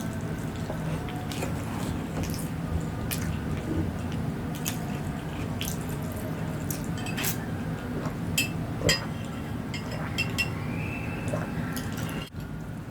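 Close-miked eating of fried tempeh mashed in chilli sambal: wet chewing and scattered sharp mouth clicks over a steady low hum.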